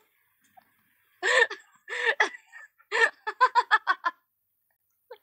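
A woman laughing: two short voiced sounds, then a quick run of giggles about three seconds in.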